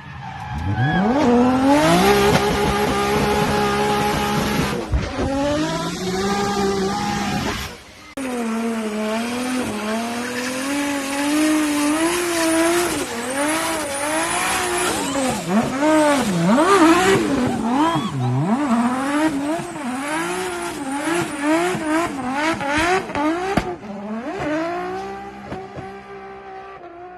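Toyota 2JZ inline-six engine in a swapped car, revving hard. It climbs quickly to high revs and holds them, then after a break the revs rise and fall over and over for about fifteen seconds before dropping away.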